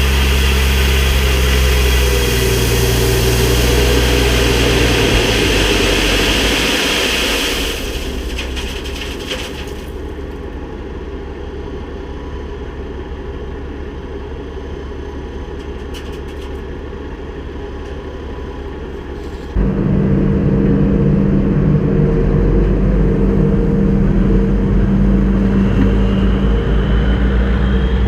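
Kubota skid steer's diesel engine running loudly, dropping to a quieter, lower note about eight seconds in, then jumping back up to full level abruptly around twenty seconds in.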